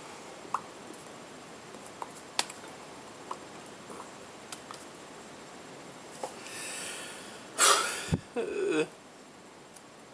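Scattered faint clicks and rustles from hands moving while signing. About three-quarters of the way through comes a man's sharp, breathy puff of breath, a short thud, then a brief voiced grunt.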